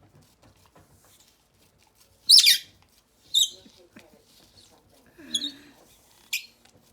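A German Shepherd giving four short, high-pitched squealing whines. The first, about two seconds in, is the loudest and falls in pitch; the third has a lower, wavering moan under it.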